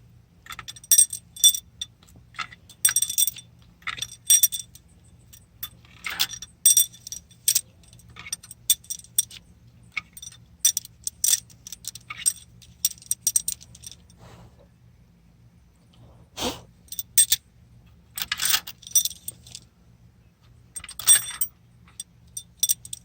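Metal pushrods from a 6.7 Powerstroke diesel clinking and rattling against each other and against metal as they are pulled out and handled, in repeated bright clusters with a short lull just past the middle.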